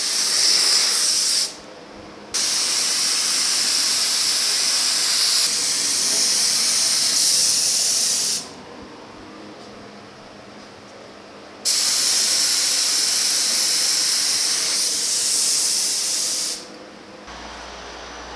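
Compressed-air paint spray gun spraying polyester primer: a loud, high hiss in three bursts of about one and a half, six and five seconds, cutting off sharply between passes.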